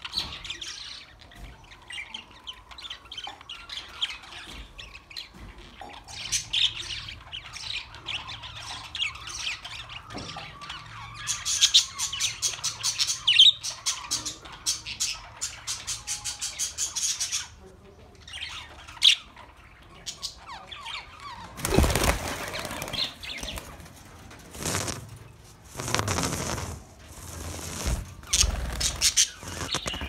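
A flock of budgerigars chattering with many short high chirps and squawks, with a fast, rapid run of warbling calls from about eleven seconds in. In the second half come several louder whooshing bursts of wing flapping as birds flutter about.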